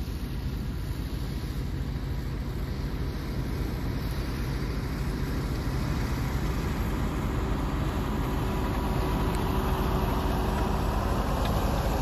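Fendt 720 tractor's six-cylinder diesel engine working steadily under load while pulling a plough, growing gradually louder as the tractor approaches and draws close.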